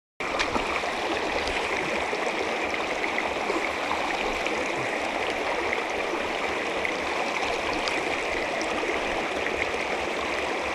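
Mountain trout stream running with a steady, even rushing of flowing water, cutting in suddenly just after the start.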